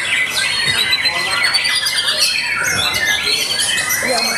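Caged white-rumped shamas in contest song, several birds singing over one another in a dense chorus of clear whistled notes, upward glides and quick repeated notes.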